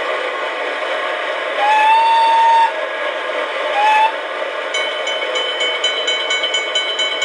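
DCC sound decoder in an O gauge DB Br144 electric locomotive model giving one long whistle and then a short one over its steady running sound. From a little before the middle, a fast repeated ringing tone follows at about four strokes a second. It all plays through the model's small loudspeaker, thin and with no bass.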